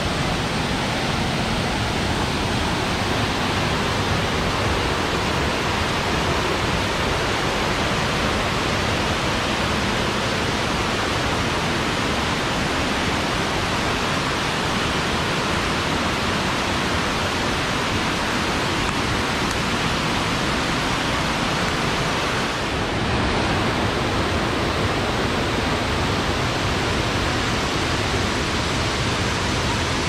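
Steady rush of water from a waterfall and a fast stream.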